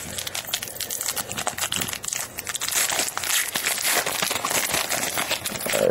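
Foil trading-card pack wrapper being crinkled and torn open by hand, a dense run of crackling.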